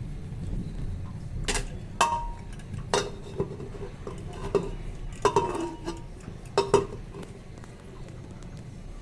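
Kitchen utensils knocking and clinking against cookware: about six sharp strikes, several ringing briefly, over a low steady hum.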